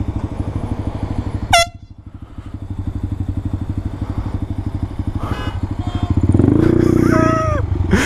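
Small motorcycle engine running at low speed, with a handlebar-mounted canned air horn sounded: a very short blip about a second and a half in, then a longer blast near the end whose pitch sags as it stops.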